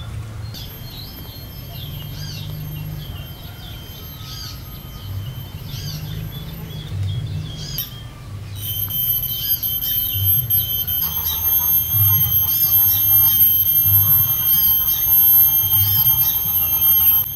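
Birds chirping in short repeated calls over a steady high-pitched whine, which breaks off briefly about eight seconds in and returns louder. A low irregular pulsing runs underneath.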